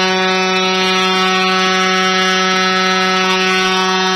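Arena goal horn sounding one long, steady note at a single pitch, signalling a home-team goal.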